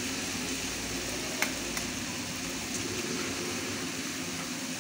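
Kwetiau (flat rice noodles) frying in a wok with a steady sizzle. A sharp metal clink of the spatula against the wok comes about one and a half seconds in, with a fainter one just after.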